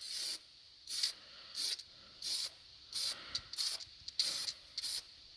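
Aerosol spray-paint can of chrome-silver car paint, sprayed in a series of short hissing bursts, about two a second.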